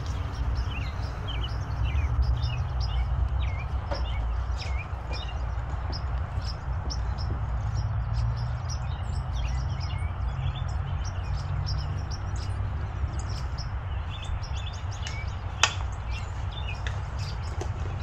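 Small birds chirping on and off over a steady low rumble, with one sharp click about three-quarters of the way through.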